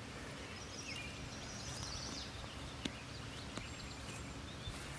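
Faint birdsong of short high chirps during the first couple of seconds, over a steady outdoor background hum, with two sharp clicks near the middle.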